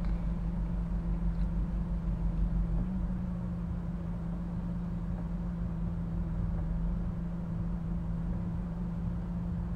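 Steady low hum of a car with its engine or ventilation running, heard from inside the cabin: one constant drone over a low rumble.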